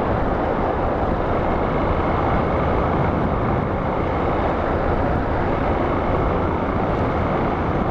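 Motorcycle riding at a steady speed: a steady rush of wind on the microphone mixed with engine and road noise.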